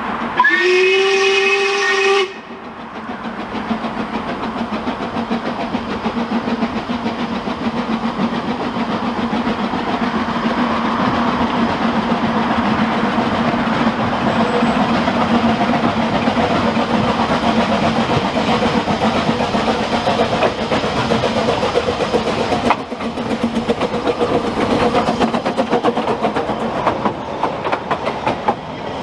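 A Ffestiniog Railway narrow-gauge train's whistle blows once for about two seconds, then the train runs on with a steady rumble.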